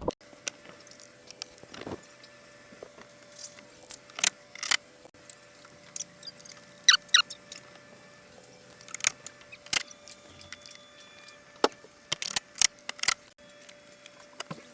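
Metal tools, bolts and the underbody skid plate clinking and knocking as the plate is refitted and bolted up under the car: sharp, irregular clicks, several ringing briefly, with the loudest clatter about seven seconds in and again near twelve to thirteen seconds.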